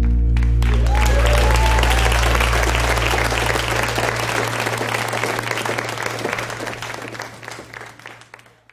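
Audience applause with a few brief cheers breaking out about a second in over the live band's last held chord; the chord dies away after a few seconds and the clapping fades out near the end.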